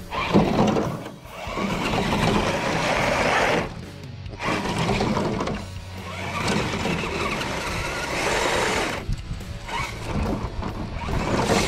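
Electric motor of a CEN Racing F450 RC truck whining under throttle, with its tyres spinning and scrabbling in loose dirt. It comes in repeated bursts with short breaks between them, over background music.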